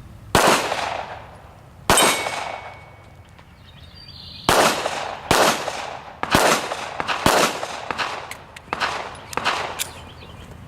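Glock 34 9mm pistol firing: two shots about a second and a half apart, then after a pause of over two seconds a string of about six more, roughly one a second. Each shot rings out with an echo behind it.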